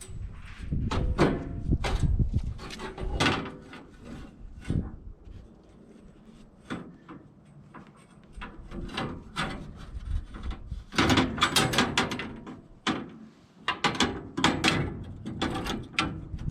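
Irregular knocks, clunks and scrapes of hands-on work changing a sawmill blade, with metal parts being handled, opened and shut.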